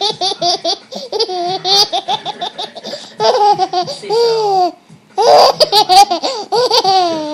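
Baby laughing in quick, rhythmic pulses. There are two long bouts with a short breath between them about five seconds in, and the second ends in a long falling note.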